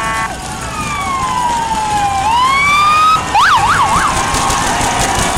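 Electronic vehicle siren on a race escort vehicle: a slow wail that falls and rises again, then a quick yelp of rapid up-and-down swings about halfway through, settling into a steady tone.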